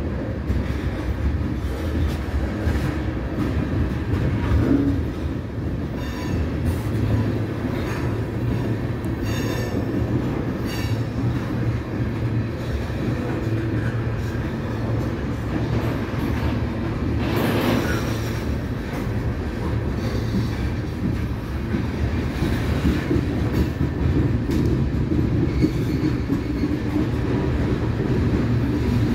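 Freight train of tank cars rolling past: a steady rumble of steel wheels on rail, with scattered clicks and clanks from the cars and a brief squeal of wheels partway through.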